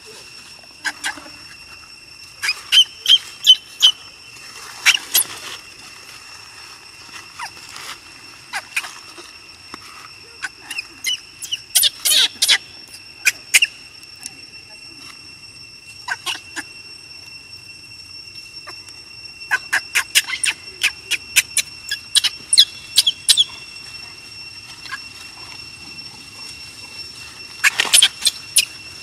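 Infant macaque crying in clusters of short, high squeaks, several times, over a steady high drone.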